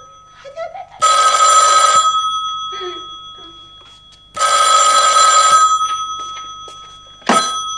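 Telephone bell ringing twice, about a second each time and some three seconds apart, each ring fading away afterwards. A sharp clack near the end as the receiver is picked up.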